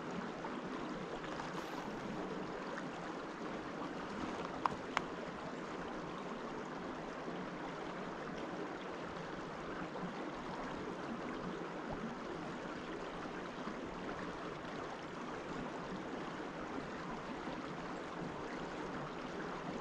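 Steady rush of a small brook's flowing water, with two short sharp clicks about five seconds in.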